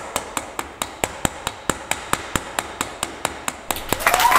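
Steady run of sharp, evenly spaced clicks or taps, about four a second. Near the end a noisy burst like applause or cheering comes in, with a short whistle-like tone.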